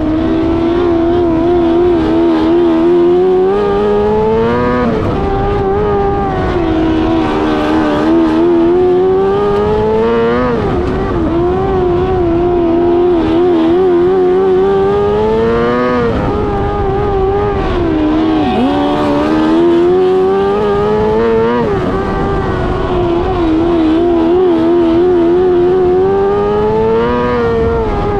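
600cc micro sprint's motorcycle engine at racing speed on a dirt oval. Its pitch climbs and then drops sharply about every five to six seconds as the throttle is lifted and reapplied through the laps.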